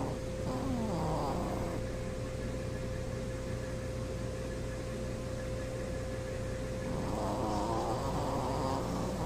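Shih Tzu snoring: two snores about six seconds apart, each lasting a second or two.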